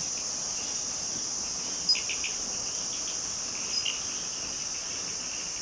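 Steady high-pitched insect chorus, with a few short, brighter chirps about two seconds in and again near four seconds.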